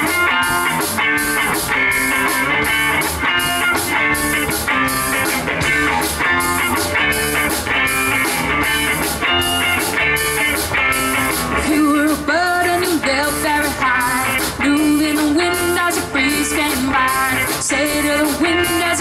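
Live rock band playing an instrumental passage: electric guitar riffs and chords over electric bass and a steady drum beat, with cymbal and drum hits about twice a second.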